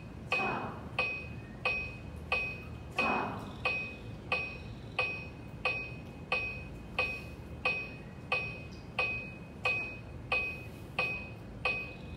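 Electronic metronome ticking steadily at about 90 beats a minute: sharp clicks with a short bright ring, keeping the beat for a conducting exercise. Two short rushes of noise come in the first few seconds.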